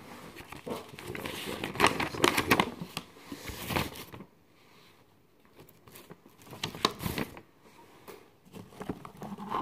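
Paper packaging rustling and crinkling as it is handled, in irregular bursts. There is a quieter stretch in the middle, then more rustling.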